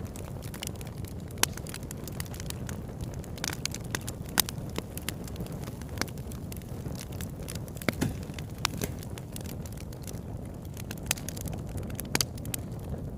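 Wood campfire burning: a steady low rush of flame with irregular crackling and sharp pops, a few of them louder than the rest.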